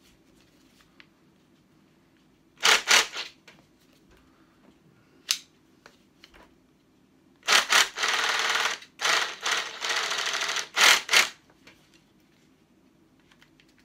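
Sharp plastic and metal clicks and clacks from handling a Parkside cordless reciprocating saw and locking a blade into its clamp. A quick run of clicks comes about 3 seconds in. A longer, denser stretch of clattering, with two patches of about a second each, comes around the middle.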